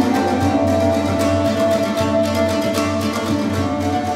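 Instrumental music: quick plucked-string notes over long held tones.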